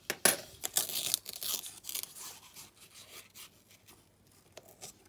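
Paper coin-roll wrapper being torn and peeled back by hand, with tearing and crinkling in the first two seconds, then dying down to a few faint clicks.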